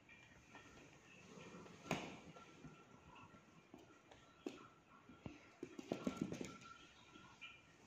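Claws and paws of a cat and a puppy tapping and pattering on a laminate floor: a sharp knock about two seconds in, scattered taps, then a quick flurry of taps near the end.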